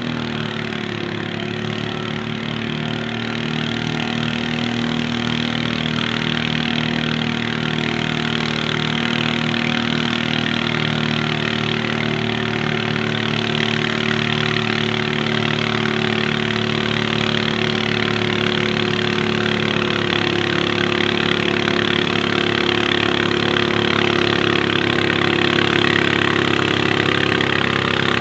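Garden pulling tractor engine running at a steady speed, gradually growing louder.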